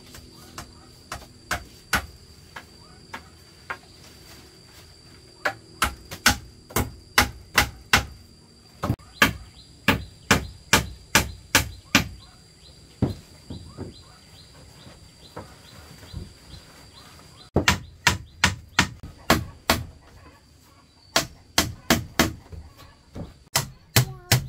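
Repeated sharp chopping blows of a hand tool striking wood, about two a second, in runs with short pauses between them. A faint steady high tone runs underneath.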